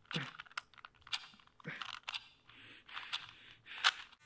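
Plastic Rubik's cube being twisted quickly: its layers click and rasp as they turn, in rapid, irregular runs, with one sharper click near the end.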